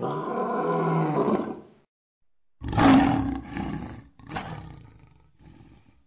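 Big-cat roar sound effects: one long roar of nearly two seconds, then after a short pause a louder roar broken into several shorter calls.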